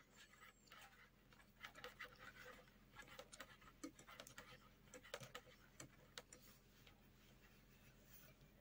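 Near silence with faint, scattered clicks and rustles of metal knitting needles and yarn as stitches are knitted, thinning out after about six and a half seconds.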